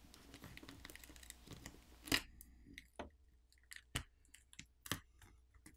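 A Samsung Galaxy A11's battery being pried and peeled off its adhesive strips. There is faint crackling for about two seconds, then a sharper click, and then a few light clicks and taps as the loosened battery is lifted out of the metal mid-frame.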